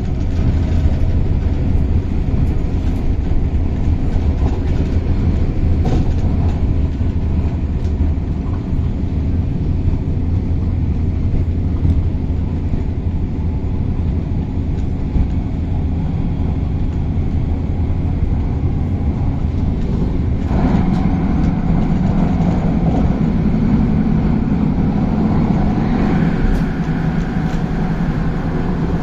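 CAF-built Tung Chung Line electric train running, heard from inside the passenger car as a steady low rumble. About two-thirds of the way through a steadier hum sets in, and a higher whine joins it near the end.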